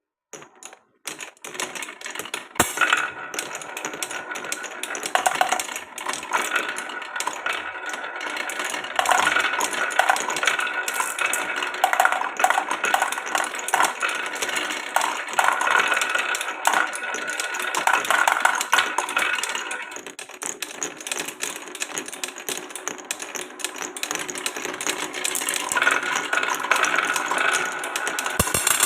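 Glass marbles rolling and clattering through a wooden marble run, a dense stream of clicks, knocks and rattles with a ringing roll underneath. It starts suddenly out of silence about a second in and goes on without a break.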